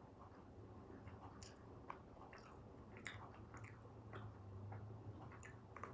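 Faint chewing of a fruit-flavoured gummy candy: soft, irregular sticky clicks of the mouth working the gummy.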